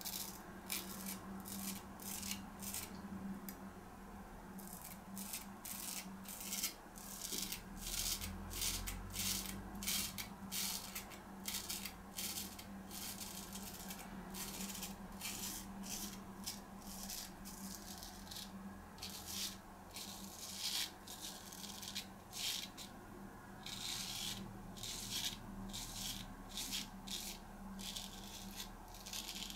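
Straight razor scraping through lathered stubble in short strokes, a rapid string of crackling scrapes that comes in runs, busier near the end. A steady low hum sits underneath.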